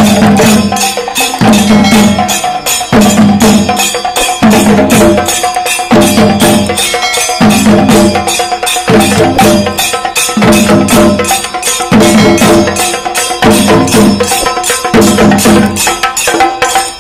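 Chenda melam ensemble: many Kerala chenda drums beaten fast with sticks in a dense, continuous rhythm. A deeper pulse returns about every one and a half seconds.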